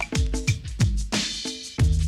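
Backing music with a steady drum beat; a bass line comes in near the end.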